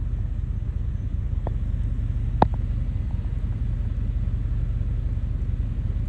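A vehicle running with a steady low rumble, with two short clicks about one and a half and two and a half seconds in.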